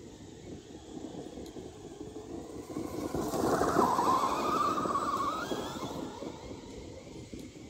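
Traxxas Hoss RC monster truck driving past at speed over dirt: its brushless electric motor whines and its tyres rush over the ground. It grows loud about three seconds in and fades away after about five seconds.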